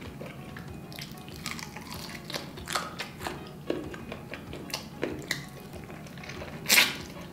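Close-up mouth sounds of eating fried chicken: wet chewing and lip smacks making a run of short, sharp clicks, with one louder one near the end.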